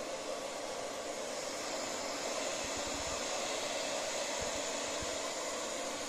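Robot vacuum cleaner running steadily, its suction fan and brushes making an even whir as it cleans a wooden floor.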